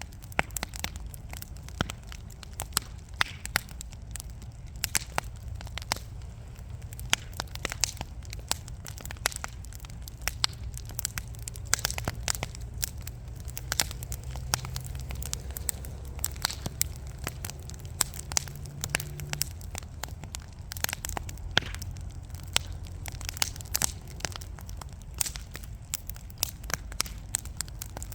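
Wood fire burning in a fireplace: burning logs crackling and popping in many sharp, irregular snaps over a low, steady rumble of flame.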